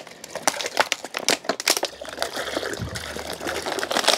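Water glugging out of an upturned plastic mineral-water bottle into a collapsible bucket, with the thin bottle crinkling and crackling as it empties.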